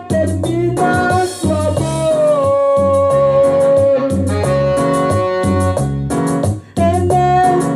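Band music with a steady drum beat under a stepping bass line, and a melody that holds one long note through the middle.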